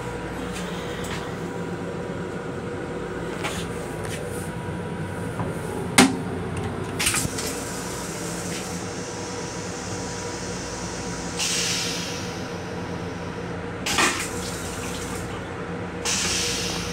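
Rail-car toilet flushing: water hisses into the stainless steel bowl in several short spurts, with a sharp click about six seconds in. Under it runs the steady rumble and hum of the train.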